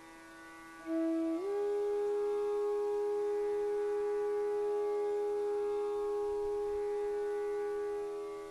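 Slow instrumental music: a steady low drone under a single melody note that comes in about a second in, slides up in pitch, and is held for several seconds before fading near the end.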